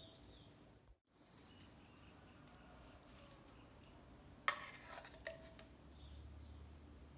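A single sharp clink of a utensil or dish against glassware about halfway through, then a smaller tap, over faint room tone with faint bird chirps.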